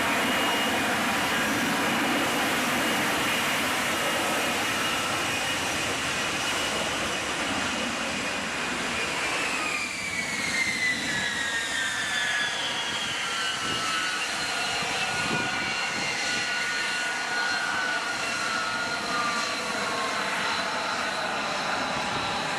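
F-35B jet fighter's engine running with a loud, steady rush. A little under halfway through, several whining tones start and slowly fall in pitch.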